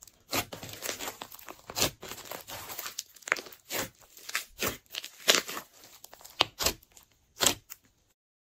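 Glossy slime being squeezed and kneaded by hand: irregular sticky clicks and pops, some sharp and loud, that cut off suddenly about eight seconds in.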